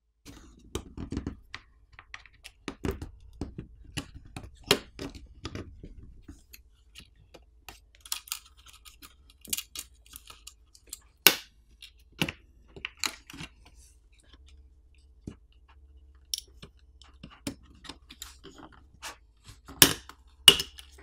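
Scattered small clicks, taps and scrapes of a plastic pry pick and hand tools working a tablet's main board loose from its plastic latch and frame. A sharp click comes about eleven seconds in and another near the end.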